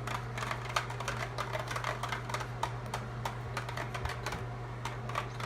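A utensil stirring a cup of soapy cleaning solution (laundry detergent, dish soap and water), clicking and tapping quickly and irregularly against the cup over a steady low hum.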